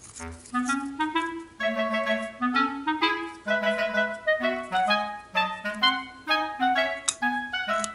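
Background music: a light melody in short, separate notes over a moving bass line.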